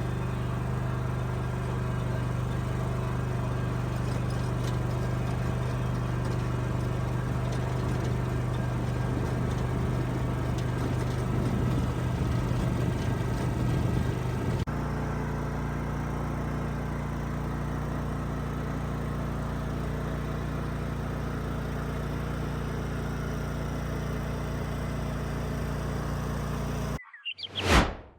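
Engine of a 2010 Exmark Laser Z zero-turn mower running steadily, with a shift in its pitch pattern about halfway through. It cuts off shortly before the end, followed by a single sharp knock.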